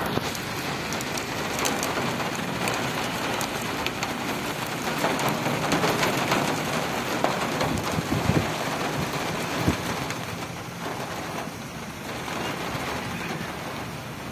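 Steady rain falling on wet pavement and puddles: an even hiss with many sharp drop ticks close by, and a couple of brief low thumps a little past the middle.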